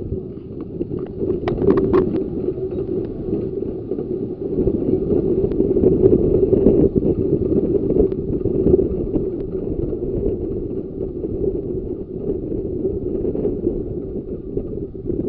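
Ravenglass and Eskdale Railway 15-inch gauge train running: a steady rumble with fine clatter from the wheels on the track, and a few sharp clicks about a second and a half to two seconds in.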